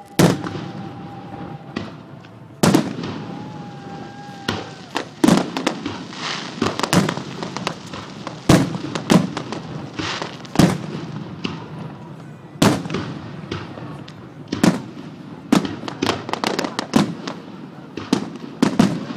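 Aerial fireworks bursting in quick, irregular succession, a sharp boom every second or so with crackling in between.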